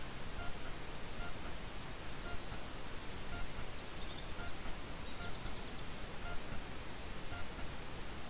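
Small bird calling: a run of high chirps, quick downward notes and short rapid trills from about two seconds in until near seven seconds. Underneath, a steady hiss with a faint tick repeating under once a second.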